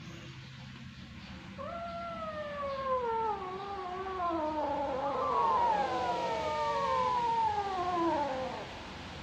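Young kittens meowing: several long, drawn-out meows falling in pitch and overlapping one another, from about a second and a half in until shortly before the end.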